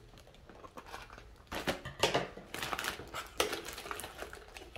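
Crinkling and rustling of plastic packaging being handled and opened, in irregular short bursts.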